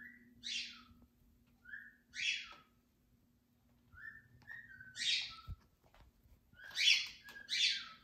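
Pet parrots calling in the morning: four or five loud calls about every two seconds, each a brief whistled note followed by a harsher screech, with the last two close together near the end.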